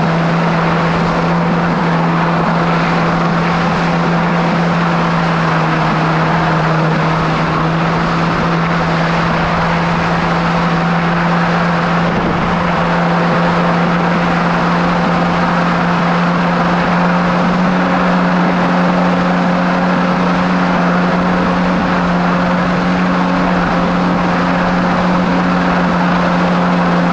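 Kawasaki SX-R 1500 stand-up jet ski's four-cylinder engine running at a steady cruising throttle, its pitch holding almost constant, over the loud rush of wind and water spray.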